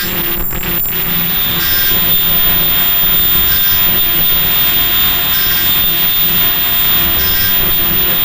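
Fully automatic N95 mask production machine running: a steady mechanical hiss and hum, with a short higher-pitched burst repeating about every two seconds as the line cycles.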